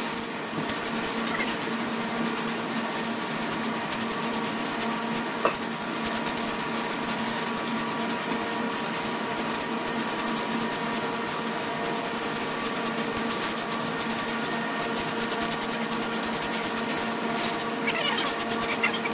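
Steady machine hum with a constant hiss, a motor running in the shop, with a sharp click about five seconds in. Near the end comes a quick rattling, as of spray paint cans being shaken.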